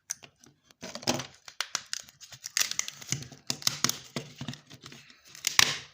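Hard plastic casing and circuit-board parts of a smart meter being handled and pried apart by hand: a busy run of clicks, snaps and crackles starting about a second in, with the loudest snap near the end.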